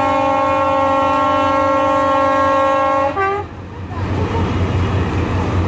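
Diesel locomotive's horn sounding one long steady blast that cuts off about three seconds in. The engine's low rumble and crowd voices follow.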